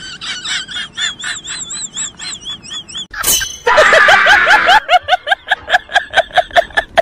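Edited-in comic laughing sound effect: fast, high-pitched ha-ha-ha pulses, a short burst about three seconds in, then a louder laugh in quick rhythmic pulses of about five a second.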